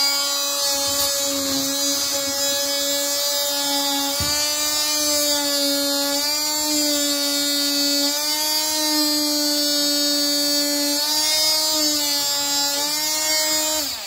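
Oscillating multi-tool running with a DeWalt DWA4214 multi-material blade: a steady high buzz that wavers slightly in pitch and stops near the end. The blade, dull from the factory, is not cutting.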